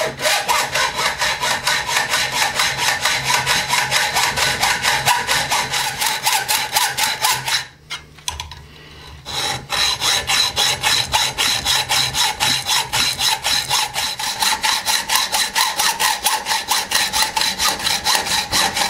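Hand hacksaw cutting through a 12-gauge shotgun barrel held in a bench vise, in quick, even back-and-forth strokes of the blade on metal. The sawing stops briefly about eight seconds in, then picks up again at the same pace.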